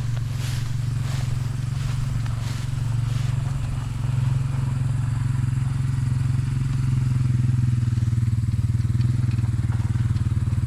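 A small engine running steadily with a low, evenly pulsing hum that gets a little louder about four seconds in. A few short rustles are heard in the first three seconds.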